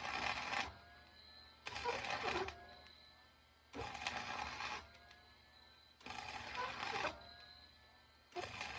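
Wire-feed welder arc crackling in short bursts of about a second, five in a row roughly two seconds apart: spot welds laid one after another to fill and reinforce a joint between two thin rods.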